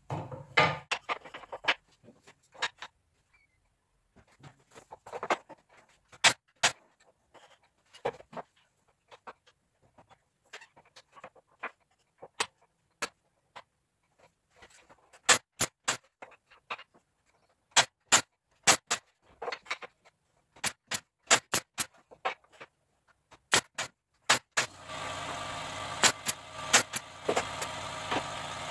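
Irregular sharp knocks and clicks of wood and tools being handled, then near the end a small electric motor starts and runs steadily with a hum.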